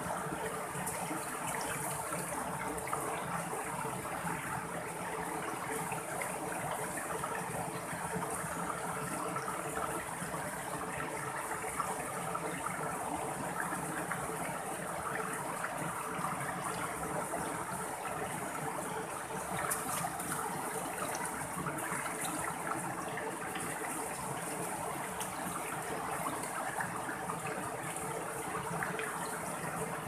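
Shallow mountain stream flowing steadily over small rock cascades and boulders.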